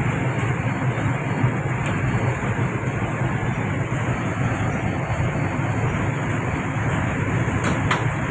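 Steady machinery drone with a strong low hum from MAN B&W auxiliary diesel generator sets running under load, heard in the engine control room.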